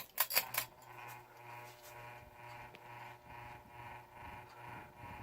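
30-inch ceiling fan running, a steady motor hum under a whoosh that pulses about three times a second. A few sharp clicks at the very start, from the pull-chain speed switch, mark the change between speeds.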